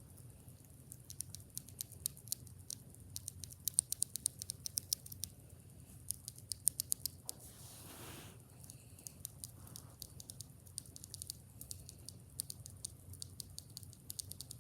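Typing on a mechanical keyboard fitted with Akko Jelly Black linear switches: quick runs of clacky keystrokes, with a short break a little past halfway.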